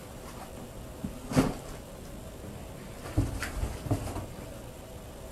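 Items being handled and shifted about inside a cardboard shipping box: a few short knocks and scuffs, the loudest about a second and a half in, then a cluster of them around three to four seconds in.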